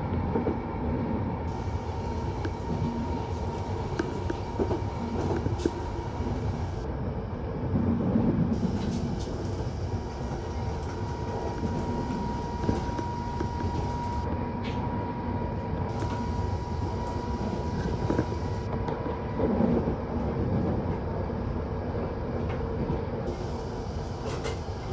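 London Underground 1972 Stock train heard from on board, running with a steady low rumble and scattered clicks from the wheels on the rails. A thin steady whine holds for several seconds in the middle.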